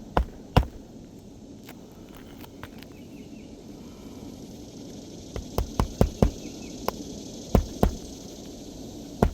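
Hand hammer driving roofing nails into asphalt shingles: sharp blows in quick runs about half a second apart, with a pause of several seconds between runs. The nails are being set flush during a shingle repair.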